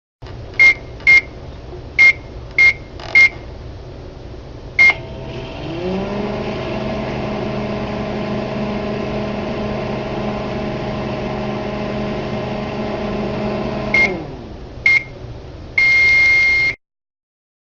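Microwave oven being set and run: six short keypad beeps as buttons are pressed, then the oven's hum rising in pitch as it starts and holding steady for about eight seconds. The hum winds down, two short beeps follow, and a long beep of about a second signals the end of the cycle.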